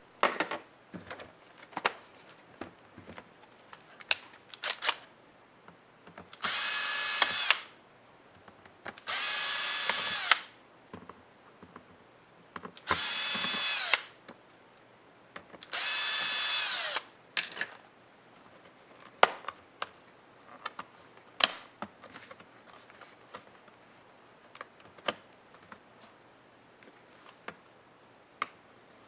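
Small electric screwdriver running in four bursts of about a second each, each starting with a brief rise in pitch, backing out the screws of a Dell Inspiron 15 7537 laptop. Sharp clicks and taps of screws and tools being handled come between the bursts.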